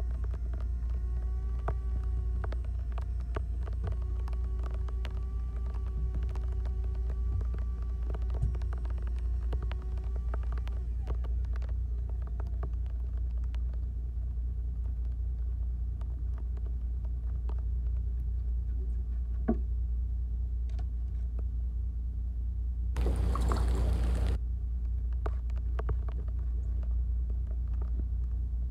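Electric fishing reel winding in a hooked fish: a steady motor whine that wavers slightly in pitch and stops about eleven seconds in. Under it a low steady rumble runs throughout, with scattered small clicks and a brief loud rushing noise about 23 seconds in.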